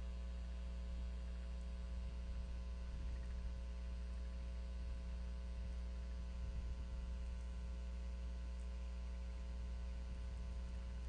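Steady electrical mains hum with several overtones held at a constant level.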